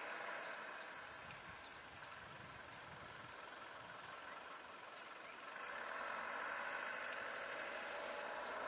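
Steady high-pitched chorus of insects, with a faint low vehicle engine rumble about a second in.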